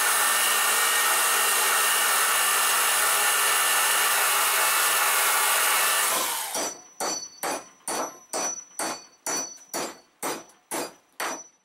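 Power drill running steadily as its bit bores through the steel socket of a cultivator head into the wooden handle. About six seconds in it stops, and a string of sharp, ringing taps follows, evenly spaced at about two a second.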